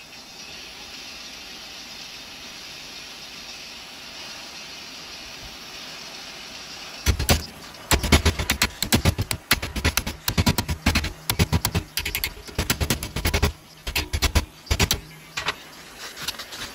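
Handheld gas torch hissing steadily as its flame heats metal rose petals held in a vise. About seven seconds in, a hammer starts tapping on the petals: quick, sharp metal knocks, several a second in uneven bursts, while the torch keeps hissing.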